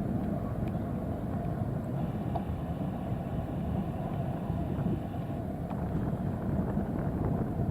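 Steady low rumble of jet aircraft engines at an airport, with wind buffeting the microphone.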